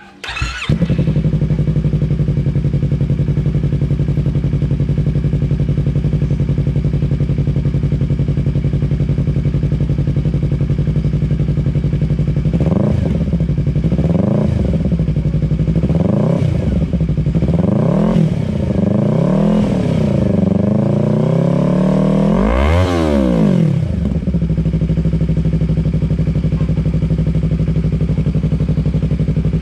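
Yamaha R3 parallel-twin engine breathing through an aftermarket Akrapovic muffler, idling steadily. About halfway through it is blipped several times in short revs, then revved higher once before it drops back to idle.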